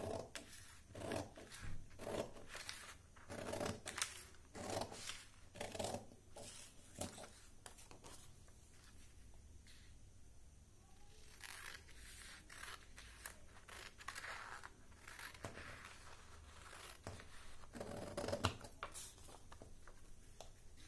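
Scissors snipping through a sheet of A4 paper, a run of short cuts about once a second at first, then a lull near the middle before more, sparser cuts.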